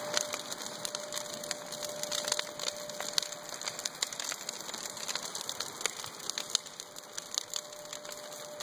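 Large brush-pile bonfire of dry branches burning, with irregular sharp crackles and pops from the wood over a steady hiss.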